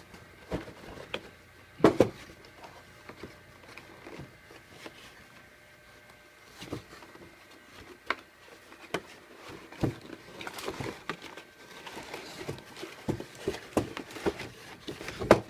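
Cardboard toy box being opened and its packaging handled: scattered knocks and taps with rustling and scraping, busier in the second half, and a sharp knock about two seconds in.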